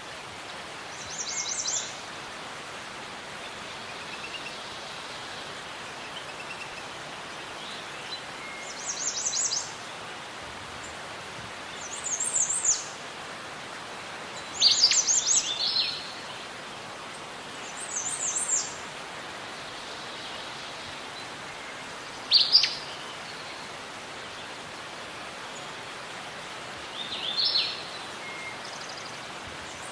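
Birds chirping: short, high calls, several sweeping downward, coming every three to four seconds over a steady, even background hiss.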